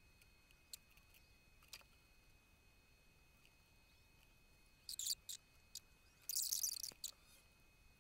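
Faint scratching of a fine-tip pen drawn along a metal ruler on paper: two short scratchy strokes past the middle, with scattered light ticks of the ruler and pen around them.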